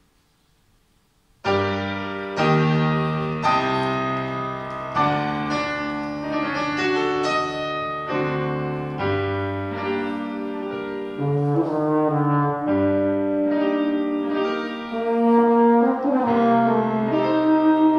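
Euphonium and piano playing a piece together, starting suddenly about a second and a half in after near silence.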